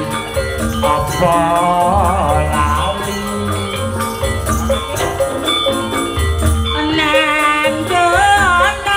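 Live Javanese campursari band music: steady drum beats and jingling percussion, with a wavering high sung melody over it about a second in and again near the end.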